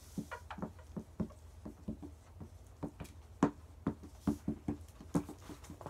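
Dry-erase markers writing on small whiteboards: an irregular run of short, quick marker strokes, several a second, some with a brief squeak.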